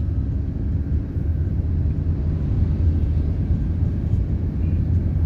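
Steady low rumble of a vehicle driving, heard from inside its cabin: engine and road noise.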